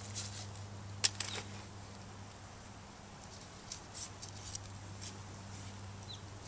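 Faint rustling and scraping of potting soil and a plastic nursery pot as a banana transplant is set into the bed and soil is pressed around it by hand, with one sharper tap about a second in. A steady low hum sits underneath.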